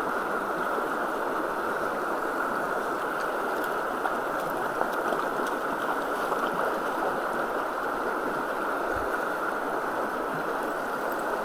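Creek water rushing steadily, an even running-water wash without a break.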